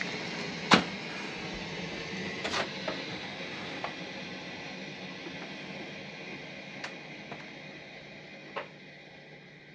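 Water hissing through the plumbing as the supply is turned back on after a repair, fading steadily as the pipes fill, with several sharp clicks and knocks from the fittings and pipework.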